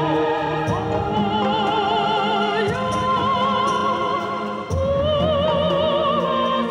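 Background music: a melody of long held notes with vibrato, sung in an operatic style over a low accompaniment that grows stronger about two-thirds of the way through.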